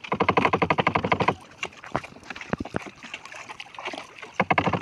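A wooden paddle pounded rapidly against the wooden hull of a bangka (outrigger boat): a fast, even rattle of knocks lasting about a second and a half, a few single knocks, then another fast run near the end. The pounding is done to scare fish toward the net.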